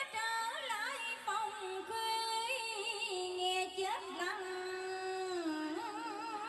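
A woman singing a slow Vietnamese cải lương line into a microphone: long held notes with wide vibrato, joined by ornamented slides up and down.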